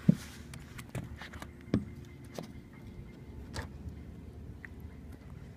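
A few short splashes and knocks as a smallmouth bass is released by hand at the water's surface. The loudest comes right at the start and another just under two seconds in, over a low steady hum.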